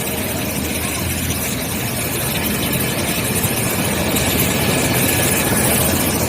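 Helicopter standing on the ground with its engine and rotor running, a steady, even noise with a low hum beneath it.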